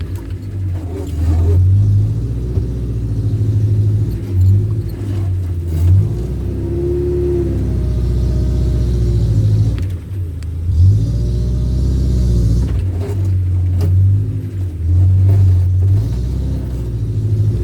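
Off-road 4x4's engine working hard at low speed, its low rumble rising and falling as it is revved up and eased off several times.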